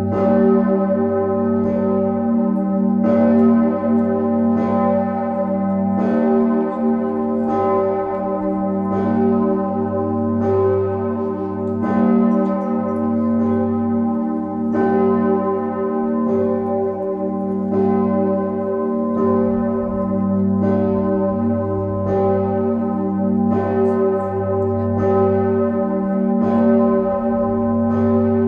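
Bell 1 ("Osanna") of Leipzig's Nikolaikirche, a large church bell tuned to g, ringing on its own. Its clapper strikes about once every second and a half, and the deep hum rings on steadily between strokes.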